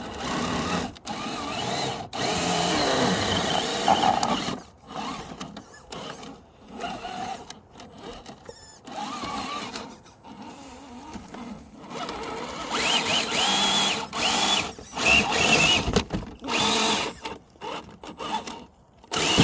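Electric motor and gearbox of a radio-controlled car whining in repeated bursts of throttle, starting and stopping again and again. In the later bursts the whine climbs in pitch and holds.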